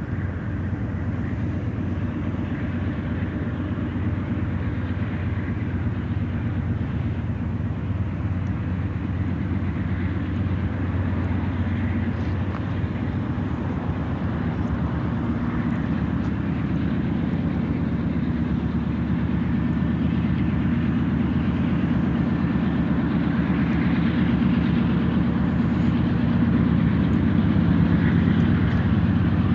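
Diesel engines of approaching GE AC4400CW freight locomotives heading a BNSF intermodal train: a steady low rumble that grows slowly louder as the train draws nearer.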